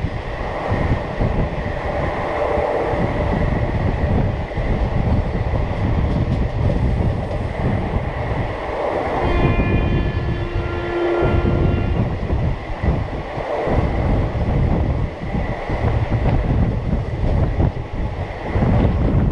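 An Indian Railways express train running at speed, heard from an open coach window: the rumble of wheels on the rails mixed with rushing wind. About halfway through, a horn sounds for roughly three seconds.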